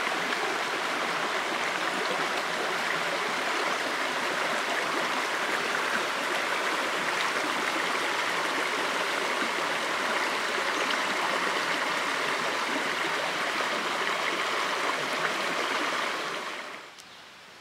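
Small shallow creek rushing and splashing over moss-covered boulders, a steady flow of water; it fades out near the end.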